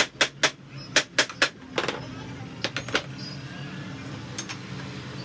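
Metal tools knocking and clinking against a Royal Enfield shock absorber at a bench vise: about a dozen sharp metallic knocks in the first three seconds, then one more near the end.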